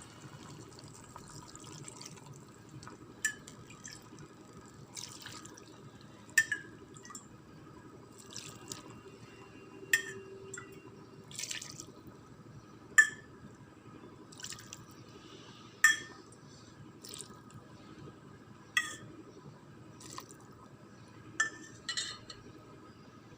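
Sharp light clinks or drips, about one every three seconds, over a faint steady background.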